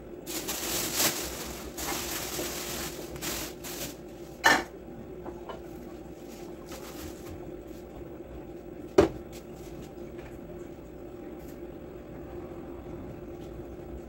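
Cloth and plastic sheeting rustling as a small top-loading washing machine is covered, then two sharp knocks, about four and a half seconds apart, as boards and a plastic tray are set down on top, over a faint steady hum.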